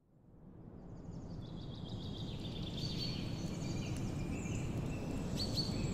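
Forest ambience fading in: a steady low rushing noise with small birds chirping and trilling high above it.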